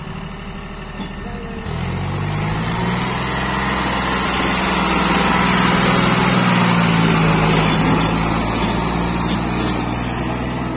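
John Deere 5310 tractor's three-cylinder diesel engine working hard as it pulls a heavily loaded sugarcane trolley. It revs up about two seconds in, grows louder as the tractor comes close, then eases off a little as it goes past.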